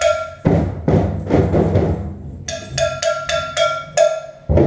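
Community drum circle playing in turns: the whole circle bursts into hand drumming for about a second and a half, then a short phrase of about seven sharp, ringing strikes on a high-pitched percussion instrument, and the group's drums come back in just before the end.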